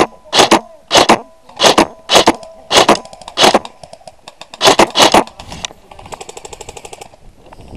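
Heavy running footsteps, about two a second, with gear jangling on each step, stopping about five seconds in. A quieter quick run of rapid ticks follows about a second later.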